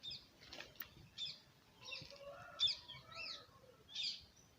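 Small birds chirping faintly: a string of short, high chirps every half second or so.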